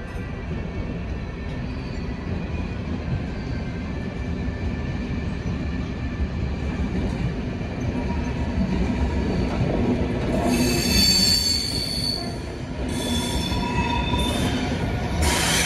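Freight train rolling past with a steady low rumble. From about ten seconds in, the wheels squeal on and off in several high tones, loudest near the end.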